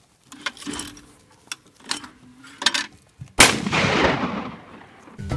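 Shotgun fire: a few fainter sharp reports, then a loud shot a little over three seconds in that rings out and dies away over about a second and a half.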